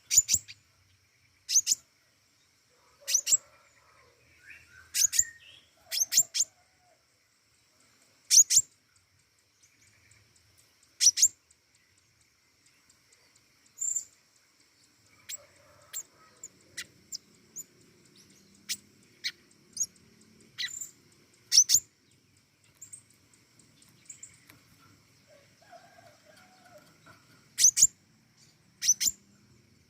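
Pentis raja songbird calling in short, sharp, high chirps, one every second or two and sometimes in quick pairs, over a faint steady high-pitched hum.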